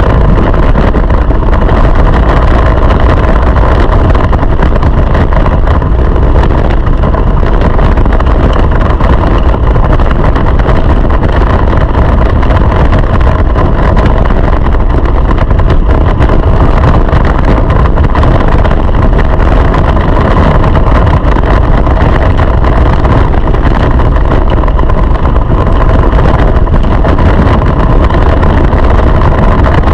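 Go-kart engine running hard under way, recorded close by an on-board camera, loud and steady, its pitch holding fairly level with a heavy low rumble beneath.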